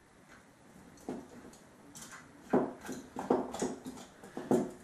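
Light, irregular clicks and taps as a locking nut is threaded by hand onto a headlight projector's threaded boss at the back of the headlight housing. There is a single click about a second in, then a quick cluster of them in the second half.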